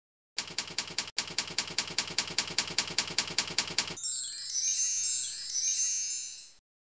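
Intro sound effects for a logo animation: a run of quick, even, typewriter-like clicks, about seven a second, then a high shimmering chime sparkle from about four seconds in that stops suddenly just before the end.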